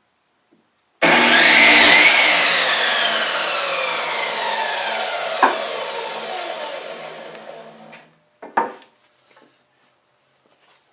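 Electric power saw starting with a sudden whine and cutting 2x3 lumber. Its blade then winds down with a falling pitch over several seconds. A few short wooden knocks follow.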